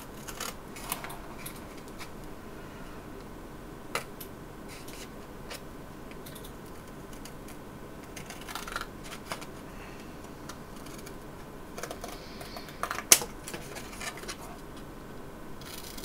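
Scissors cutting through cardboard: scattered snips and clicks, with a sharper snap about thirteen seconds in.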